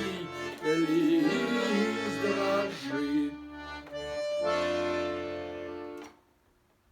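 Accordion playing the closing phrase of a Russian folk song. It ends on a long held chord that stops about six seconds in.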